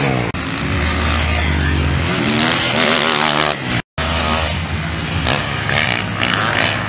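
Motocross bike engines revving hard, their pitch rising and falling as the bikes ride the dirt track. The sound cuts out for a moment about four seconds in, then the engines carry on.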